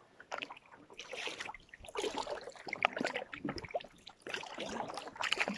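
Kayak paddle dipping and splashing in lake water, with drips running off the blade, in irregular strokes.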